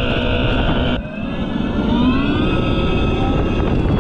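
Simulated engine sound played through the Segway GoKart Pro 2's built-in engine speaker. A steady note cuts off about a second in, then the pitch rises and levels off as the accelerator is pressed.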